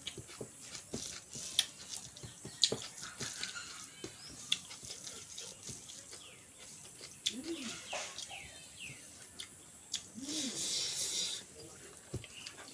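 Close-up eating sounds of someone eating chicken and rice by hand: many short clicks and smacks of chewing and handling the food, with a brief hiss about ten seconds in.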